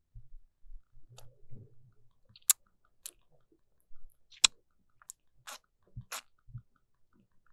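Quiet, wet kissing sounds voiced close to a binaural microphone: an irregular string of lip smacks and mouth clicks, the sharpest about two and a half and four and a half seconds in, with a few soft low thumps between them.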